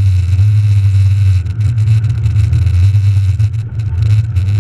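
Rally car's engine heard from inside the cabin, running hard at speed, with brief dips in loudness about a second and a half in and again near the end as the driver lifts off or changes gear.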